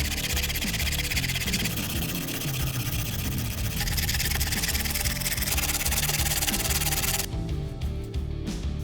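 Steady abrasive rubbing, like sanding a part by hand, that stops abruptly about seven seconds in, over background music with a low bassline.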